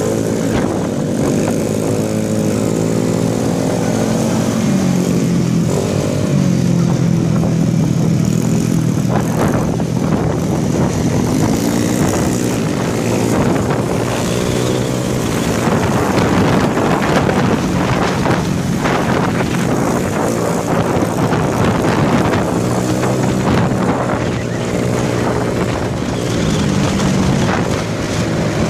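Motor scooter engine running on the road, its pitch rising and falling with the throttle, with heavy wind noise buffeting the phone's microphone.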